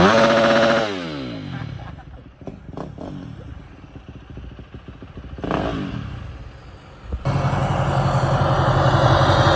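Dirt bike engine revving, its pitch falling away and fading out over the first second or two, followed by light clatter. About seven seconds in, a steady, louder rumble starts abruptly.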